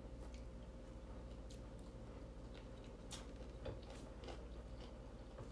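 Quiet eating sounds: faint, irregular clicks and smacks of people chewing and handling rice and fried chicken by hand, over a steady low hum.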